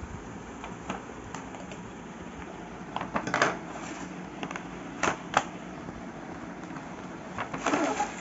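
Plastic toy packaging being handled and opened: scattered light clicks and crinkling rustles, with louder bursts about three seconds in, twice around five seconds, and near the end.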